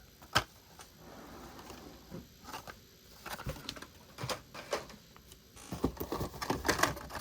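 Plastic-and-card blister packs of die-cast toy cars being handled and shuffled: a sharp click a third of a second in, then scattered clicks and crinkles that grow busier near the end.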